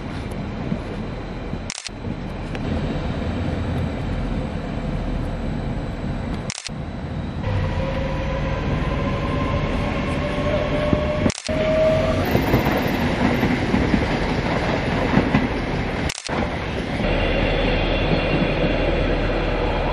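Passenger trains running through a station: a steady rail rumble, with a rising motor whine between about eight and twelve seconds in as a train picks up speed.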